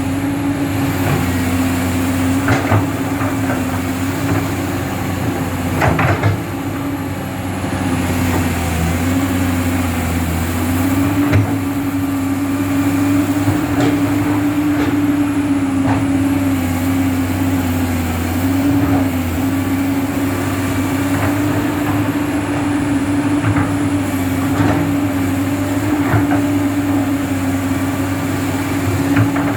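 Komatsu PC200-8 hydraulic excavator running, its diesel engine giving a steady low hum under a whine that wavers slightly in pitch. A few short knocks or clanks come through now and then.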